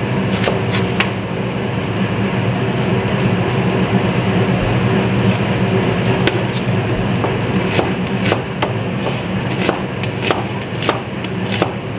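Chef's knife chopping onion on a plastic cutting board: irregular knife strikes against the board, over a steady low hum.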